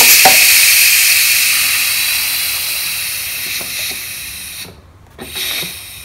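Steam hissing out of an electric pressure cooker's pressure-release valve as the last of the pressure is let off after cooking. The hiss fades steadily and stops after about four and a half seconds, then a brief weaker puff follows. It is a short release rather than the usual high jet, since the cooker stood a while after finishing and had already lost most of its pressure.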